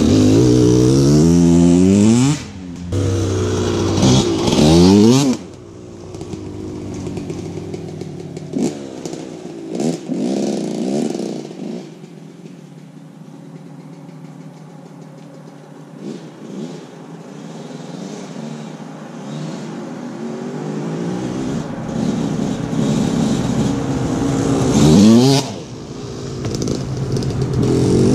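2000 Yamaha YZ125 two-stroke dirt bike revving up through the gears as it rides off, the engine note fading into the distance, then growing loud again as the bike comes back close near the end.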